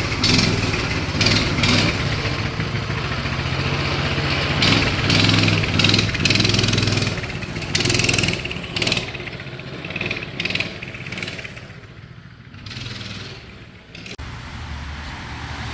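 An engine running steadily, with a low hum whose level rises and falls, quieter for a few seconds near the end.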